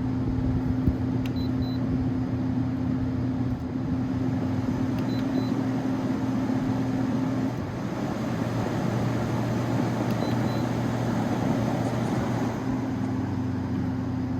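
LG 8,000 BTU window air conditioner's fan running steadily: a rush of air over a low motor hum. The compressor has not yet kicked in, held off by its start-up delay.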